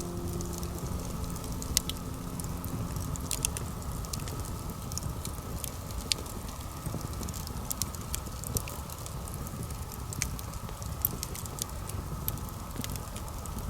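Campfire crackling, with scattered sharp pops and snaps.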